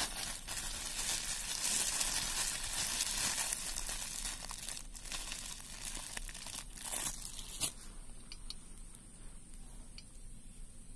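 Dense crinkling, rustling noise for the first seven or eight seconds, ending with a sharp click; after that, only a few faint ticks.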